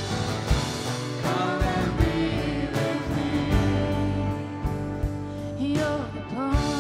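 Worship song played by a band with drums, a singer holding one long note through most of the stretch.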